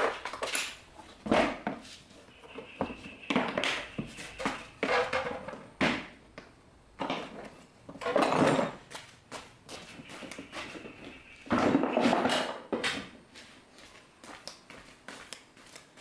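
Irregular clicks, knocks and clatter of hard parts and tools being handled during repair work on an electric water heater, with louder stretches of clattering about halfway through and again near three-quarters of the way.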